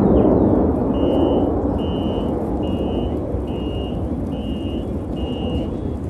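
Jet roar from a Blue Angels jet fading away after a pass. Over it, a vehicle's reversing alarm beeps six times, about once a second, each beep about half a second long.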